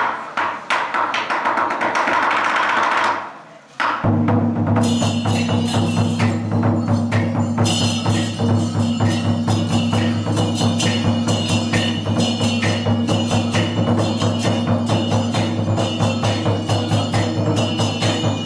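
Lion dance percussion: a large Chinese lion drum beaten with sticks alongside clashing hand cymbals. After a few scattered opening strikes and a brief pause, a fast, steady, driving rhythm begins about four seconds in.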